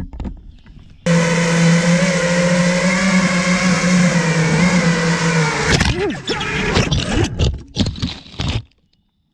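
FPV quadcopter's motors and propellers spinning at a steady throttle: a loud whine over a strong low hum that cuts in suddenly. After a few seconds the pitch swings up and down, with sharp knocks and rattles, then the sound stops abruptly.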